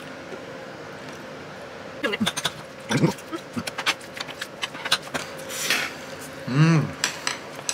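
Tableware clicking and tapping during a meal: spoons or chopsticks against bowls and dishes, starting about two seconds in. There are short voice sounds, the longest a hum that rises and falls about six and a half seconds in.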